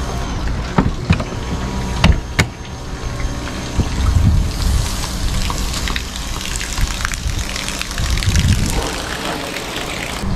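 A few sharp clicks and knocks in the first seconds as the RV's entry door is worked open, then the steady hiss of a pressure washer spraying water on the roof, with low rumbles underneath.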